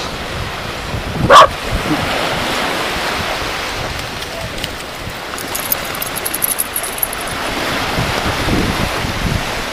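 A dog barks once, loud and short, about a second and a half in, over the steady wash of surf breaking on the shore.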